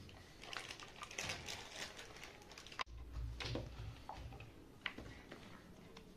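Irregular light clicks and taps of gujiya-making: a rolling pin on a board and a plastic gujiya mould being handled and pressed shut. There is an abrupt break near the middle, followed by about a second of low rumble.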